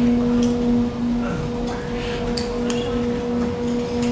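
Steady electric machine hum from factory assembly-line equipment, with scattered light clicks and clinks of small parts being handled at the bench.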